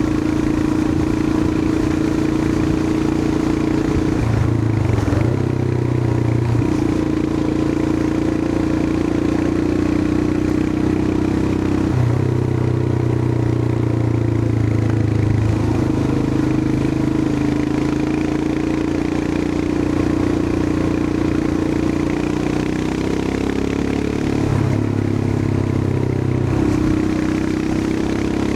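Royal Enfield Himalayan 411's air-cooled single-cylinder engine running under way. Its note shifts in pitch several times as the ride goes on.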